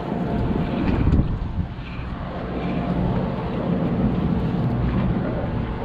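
Sportfishing boat's engine running with a steady low rumble, mixed with wind buffeting the microphone; a louder gust about a second in.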